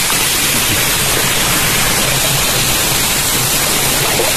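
Steady rush of river water at a waterfall: a loud, even hiss with no break.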